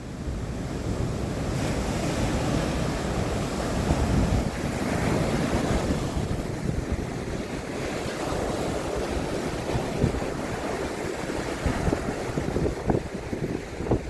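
Sea surf breaking and washing on the beach, swelling and easing, with wind buffeting the microphone in irregular gusts.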